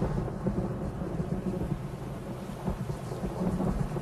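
TV drama soundtrack ambience: a continuous low, thunder-like rumble with a rain-like hiss over it.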